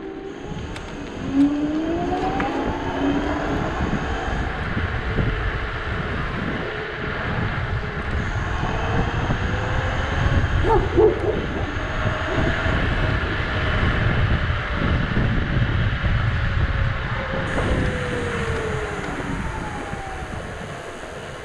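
Dualtron Thunder electric scooter's dual hub motors whining under throttle. The pitch rises as the scooter accelerates in the first few seconds and falls near the end as it slows, over a steady rush of wind and tyre noise on the road.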